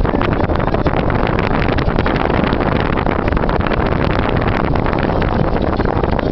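Wind rushing over the microphone from a car window, over the steady rumble of the car on the road and passing traffic.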